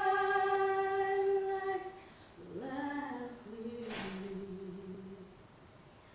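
A woman singing unaccompanied into a microphone: one long held note, then after a short pause a lower phrase that slides between pitches.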